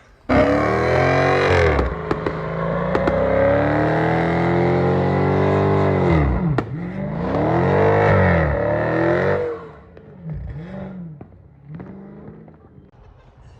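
Car engine revving hard while drifting, its pitch repeatedly rising and falling. After about nine and a half seconds it drops to a quieter level with a few short rev swells.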